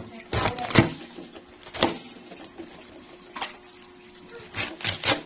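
Large serrated knife cutting a head of cabbage into wedges on a plastic cutting board: a series of short, crisp cuts, a few close together about half a second to a second in, one near two seconds, and a quick run near the end.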